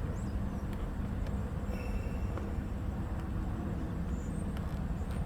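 2015 Chevy Suburban's 5.3-litre V8 idling steadily, running smoothly on a fresh water pump, belt and tensioner.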